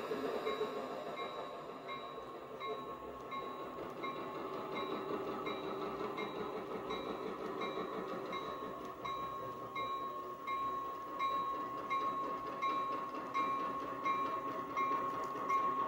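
Diesel locomotive sound from a TCS WOW Sound decoder, played through twin Tang Band speakers in a running HO-scale F7 model: a steady engine sound with a light tick repeating about every half second. A steady high whine grows stronger about halfway through.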